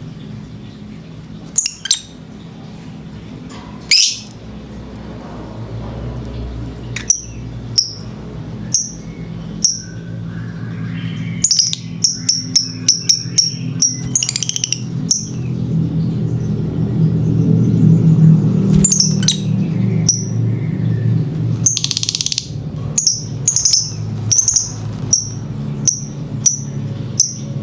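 Lovebird (Agapornis) in breeding excitement, giving short, sharp high-pitched chirps: scattered single calls, quick runs of several a second in the middle, then a slower series near the end. A steady low hum runs underneath.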